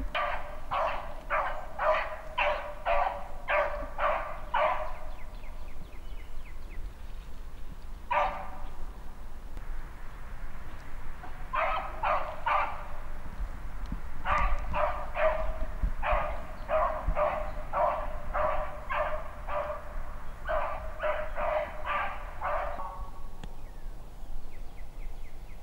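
Beagles baying on a rabbit's trail: runs of short, evenly spaced barks, about two to three a second, broken by pauses of a few seconds. The hounds are on a hot track, running the rabbit.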